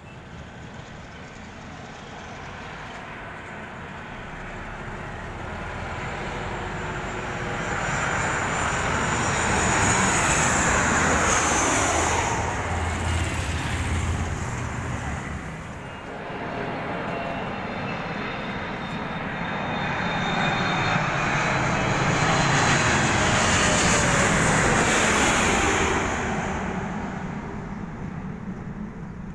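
Jet airliner's engines passing low overhead near the airport. The rushing roar with its high whine swells up, eases and swells again, and the whine falls in pitch as the plane goes by.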